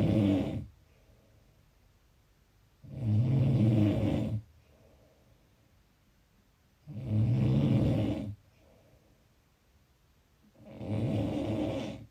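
Snoring in a steady rhythm, one snore about every four seconds, each lasting about a second and a half, with quiet between. Three full snores are heard, after the tail of one at the very start.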